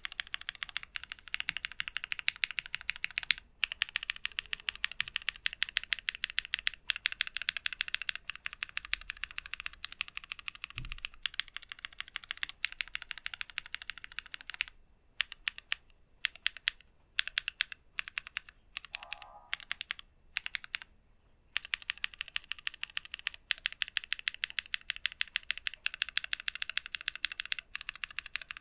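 Fast typing on a mechanical keyboard with lubed switches, CRP Tulip keycaps and an FR4 plate in a stacked-acrylic case. The keystrokes come in quick runs, thin out to separate presses with short pauses a little past the middle, then speed up again.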